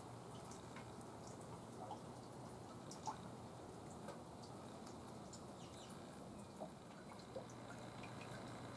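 Faint, scattered drips and ticks of melting snow on a sunlit deck, over a low steady hum.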